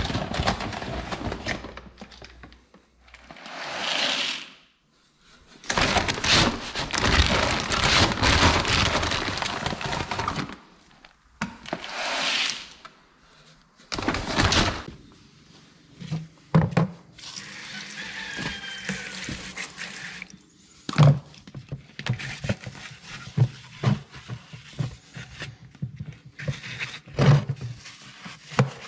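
Pouring as a chicken feeder and waterer are refilled: several pouring bursts, the longest about five seconds, in the first half, then scattered knocks and clunks of the containers.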